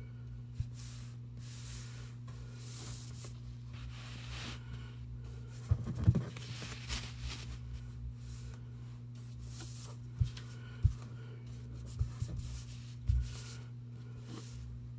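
Paintbrush scratching and dabbing acrylic paint on a paper plate and paper, in faint, short strokes. There are a few low knocks against the table, a cluster about six seconds in and several more later on, over a steady low hum.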